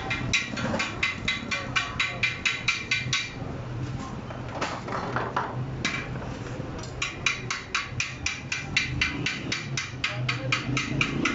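Metal being struck with a hammer in a fast, even rhythm of about four to five ringing blows a second. It pauses for a few seconds mid-way, then resumes. A steady low hum runs underneath.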